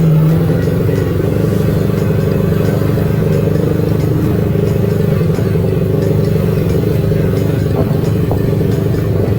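Engine running at a steady speed, a constant low drone with no change in pitch.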